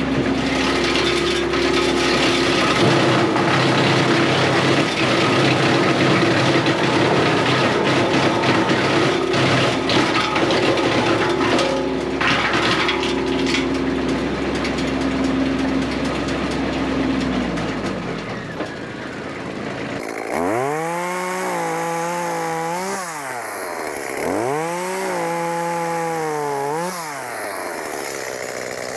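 Echo chainsaw cutting through oak wood at steady full throttle, the cutting noise dying away after about 18 seconds. Then the saw is revved up and down in about three swoops.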